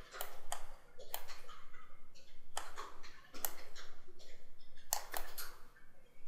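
A handful of sharp clicks from a computer mouse, spaced irregularly.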